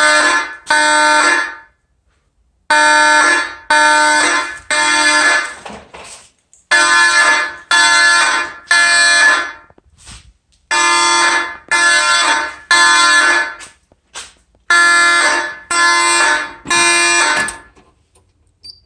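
Fire alarm horns, including Federal Signal 450D Vibratone horns, sounding in the code-3 temporal pattern: groups of three blasts of about a second each with a pause between groups. The horns go silent shortly before the end.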